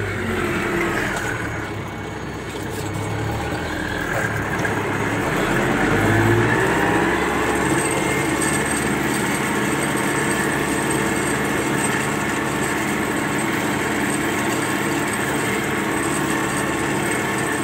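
MTZ-82 tractor's four-cylinder diesel running steadily under load, heard from inside the cab while it pulls a disc harrow. The engine dips a little about two seconds in, then picks up and holds steady.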